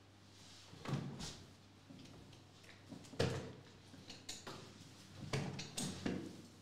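Handling noise on a tabletop as trading-card packs and cards are shifted across: several knocks and thumps with some rustling between them.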